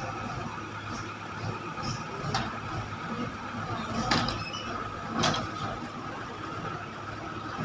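A steady engine-like machine hum with a few sharp knocks or clanks over it, the loudest about four and five seconds in.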